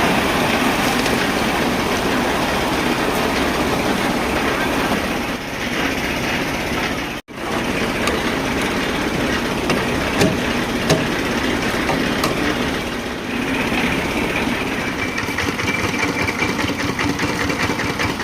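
Engine of a concrete lift hoist (lift cor) running steadily, with mechanical clatter. The sound breaks off for an instant about seven seconds in.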